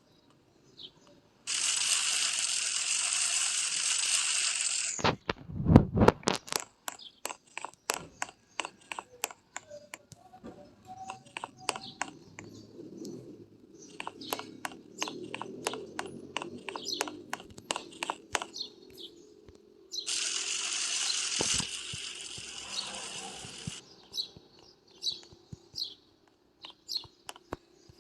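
Household handling sounds: a run of small clicks and taps, a low thud about five seconds in, and two steady hissing stretches of about three seconds each, one near the start and one about twenty seconds in.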